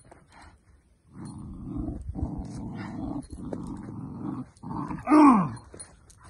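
A puppy growling in rough, broken spells as it bites and tugs during bite training. Near the end comes a short, loud vocal cry from a man that falls steeply in pitch.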